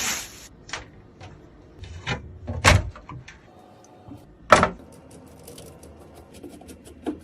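Computer parts being handled and fitted during a PC build: scattered sharp knocks and clicks, with two louder knocks, one just before the middle and one just after it.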